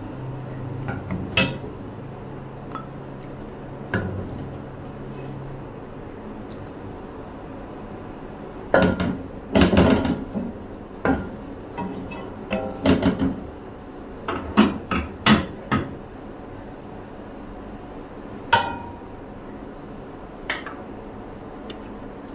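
A wooden spatula scraping and knocking against a stainless steel cooking pot and a serving dish as curry is scooped out. There are several clusters of knocks in the middle and a few single taps near the end.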